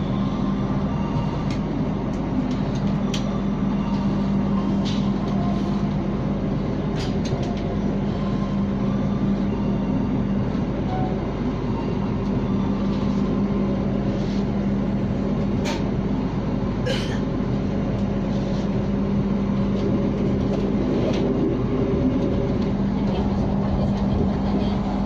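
Passenger train running, heard from inside an executive-class coach: a steady rumble under a constant low hum, with a few scattered sharp clicks.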